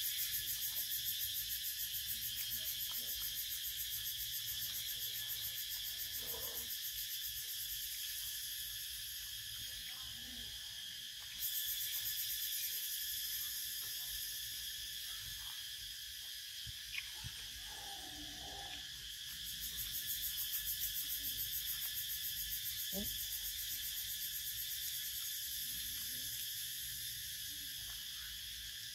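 A steady, high-pitched, rapidly pulsing buzz of insects in tropical vegetation. It gets suddenly louder about eleven seconds in and swells again later.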